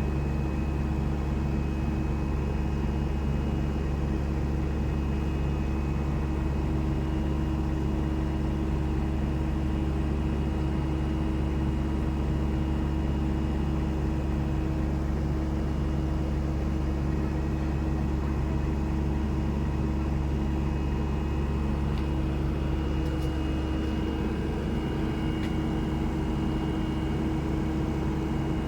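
SANY SY75C Pro mini excavator's diesel engine running steadily, an even hum with no change in speed.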